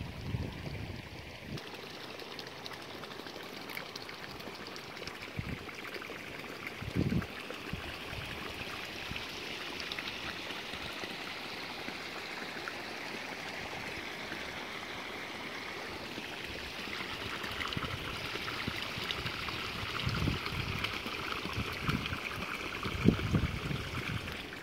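Wind in an open paddy field: a steady rushing hiss that grows a little louder in the second half. Gusts buffet the microphone with short low rumbles, once about seven seconds in and a few times near the end.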